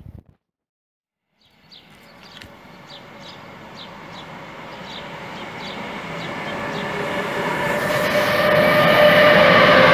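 Two coupled electric locomotives, a class 189 and a class 193, running light and accelerating toward the listener. The traction-motor whine, with several steady tones, starts about a second and a half in and grows steadily louder as they come closer.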